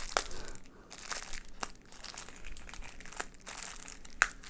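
A small plastic packaging bag crinkling as it is handled and opened by hand, with a few sharp crackles of the film.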